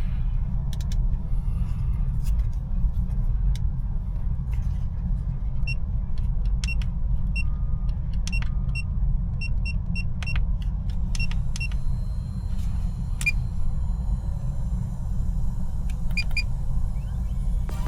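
A steady low rumble with scattered clicks and short, high-pitched beeps at irregular intervals, some in quick pairs, mostly in the second half.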